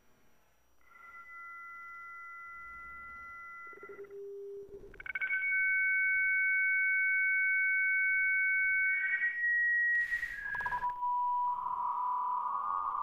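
Dial-up modem connection tones slowed to a tenth of their speed, so each tone is held for seconds. A steady two-note tone runs for about three seconds, then a brief low tone, then a louder two-note tone for about four seconds. Shorter single tones step down in pitch before a wavering tone takes over near the end.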